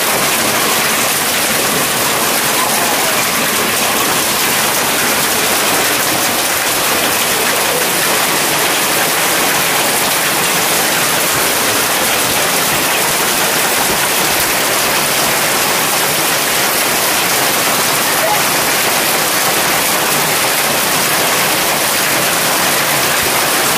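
Heavy hail falling: a loud, steady hiss of countless hailstones hitting the ground.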